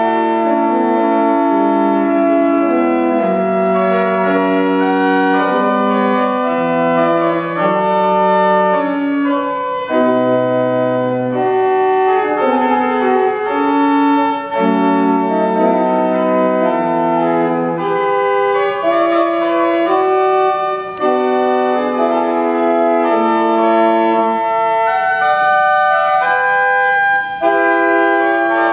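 1874 pipe organ playing a piece in sustained chords, the held notes changing every second or so, with a brief low bass note about ten seconds in.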